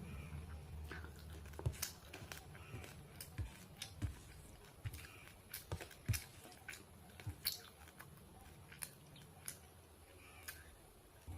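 A person chewing and eating a meal of rice, dal, mashed potato and fried fish close to the microphone: soft, wet mouth clicks and smacks at an irregular pace, about two a second at their busiest.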